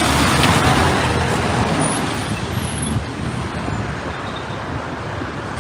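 A car passing close by on the road, its tyre and engine noise loudest in the first second and then fading away.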